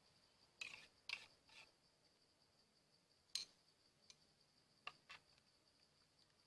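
Faint light clicks and taps, about seven at irregular intervals, like utensils being handled. Under them runs a steady high insect trill.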